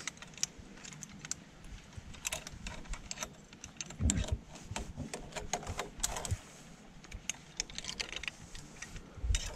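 Irregular light clicks and clinks, with a couple of dull thumps about four and six seconds in.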